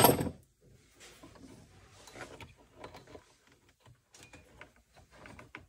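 Wiring being handled and pulled through the plastic dash panel of a Polaris Ranger UTV: a brief louder clatter at the start, then faint rustling and light plastic clicks.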